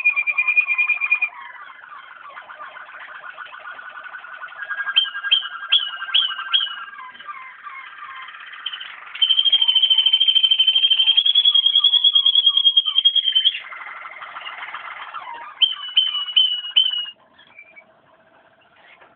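Waterslager (Malinois) song canary singing: long held high whistles, fast rattling trills, a run of short rising notes, and a loud high trill held about four seconds in the middle. The song stops shortly before the end.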